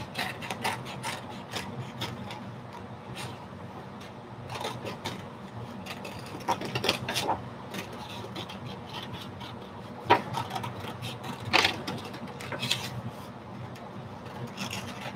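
Scissors snipping through drawing paper in short, irregular cuts, with the sheet rustling as it is turned and handled.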